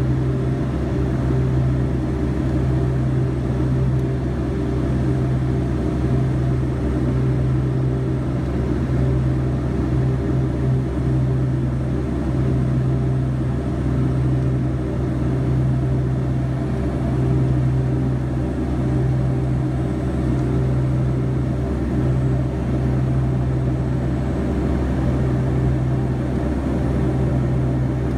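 Twin Pratt & Whitney PT6A turboprop engines and propellers of a Beechcraft King Air 200, heard from inside the cockpit on final approach. A steady, loud low propeller drone swells and fades slightly every second or two over a constant rush of engine and air noise.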